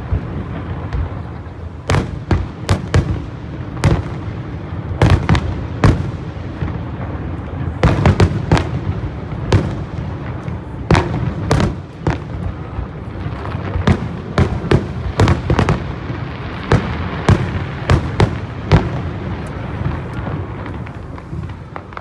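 Aerial fireworks bursting in quick succession, sharp bangs one or two a second over a continuous low rumble, as in a show's finale.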